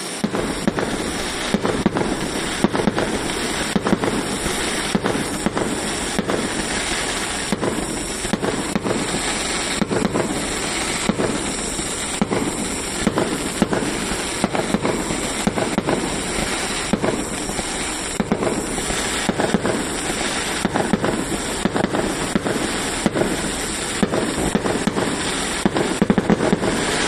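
Fireworks going off in a dense, continuous barrage: many sharp bangs and crackles, several a second and irregular, over a steady loud rumble.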